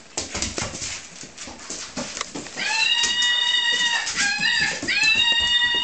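Screaming monkey toy giving its recorded scream, a steady high-pitched wail that starts about halfway in, breaks briefly and comes again. Before it, the knocks and scuffles of a Weimaraner puppy tossing the toy about.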